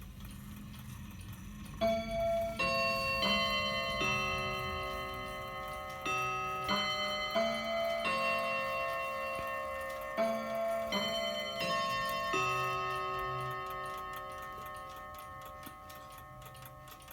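Mantel clock chiming on its chime rods: hammers strike about a dozen notes in three groups of four, each note ringing on. The movement ticks steadily underneath.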